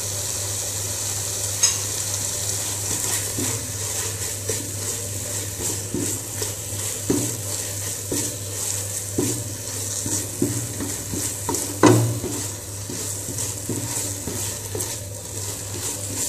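Coriander-leaf paste sizzling in mustard oil in a nonstick pan on low heat, cooking off its water, while a plastic slotted spatula stirs and scrapes it in repeated strokes. One louder knock of the spatula on the pan comes about twelve seconds in.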